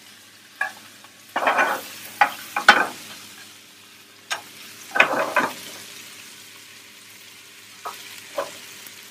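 Shell-on prawns frying in a very hot pan, sizzling steadily as they are turned over. Short bursts of clatter and scraping from the pan and cookware come several times, loudest about two seconds in and again about five seconds in.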